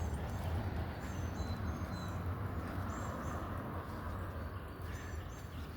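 Small birds chirping in short, repeated high calls, over a steady low rumble of outdoor background noise.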